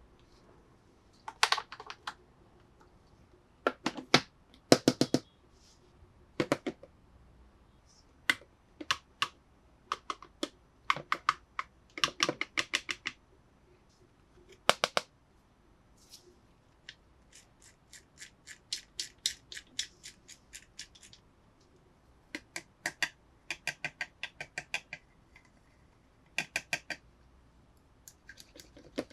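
Hard plastic toy parts being handled, giving sharp clicks and quick runs of clicking, with an even ratcheting run of about eight to ten clicks a second in the middle.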